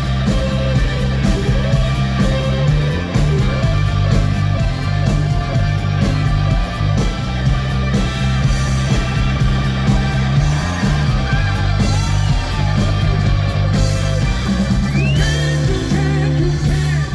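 Live blues-rock band playing: electric guitar lead with bent notes over bass guitar and drums. The song stops abruptly near the end.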